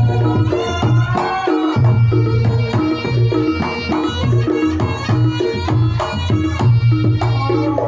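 Reog Ponorogo gamelan playing loudly through a sound system: a slompret (Javanese shawm) carrying a wavering, nasal melody over pounding kendang drums and regular pitched strikes of kenong and kempul.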